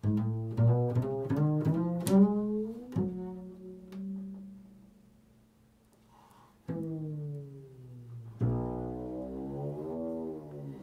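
Upright double bass played pizzicato: a quick run of plucked notes, then a low note left ringing as it fades. After a short lull come two more notes, the last held with its pitch wavering.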